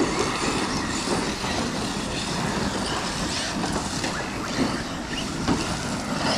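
Large-scale electric RC cars racing on a dirt track, their motors whining up and down in pitch over tyre and dirt noise.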